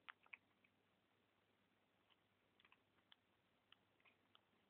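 Near silence broken by faint, irregular clicks: a kitten crunching dry kibble.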